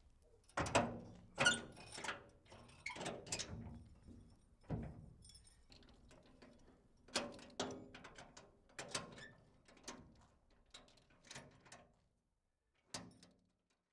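A series of irregular knocks and clunks, about a dozen spread over ten seconds, that stop about twelve seconds in, followed by one last knock near the end.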